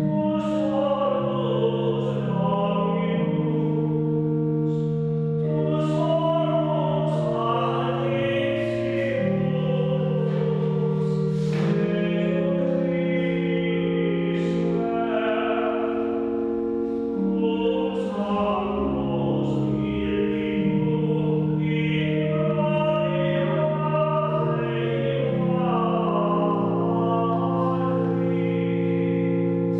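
Choir singing sacred music over long, steady held low notes, with the words' s-sounds showing.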